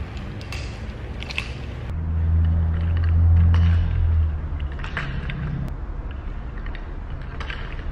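Metal nunchucks swished through the air in figure-eight spins with hand rolls, their chain clicking now and then. A low rumble swells about two seconds in and fades out about two seconds later.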